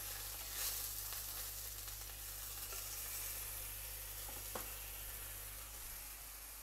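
Chicken breast sizzling in oil in a nonstick frying pan, a steady hiss that slowly grows fainter, with a couple of light clicks.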